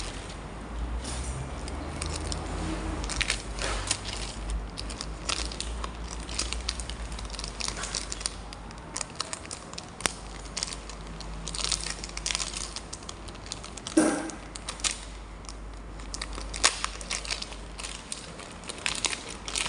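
Packaging crinkling and rustling as a parcel is handled and opened, in irregular crackles, with one louder knock about 14 seconds in.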